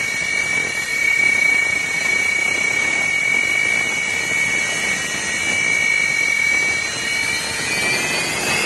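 Sukhoi Su-30 fighter's jet engines running on the ground: a steady high whine over a rushing hiss. Near the end the whine climbs in pitch as the engines speed up.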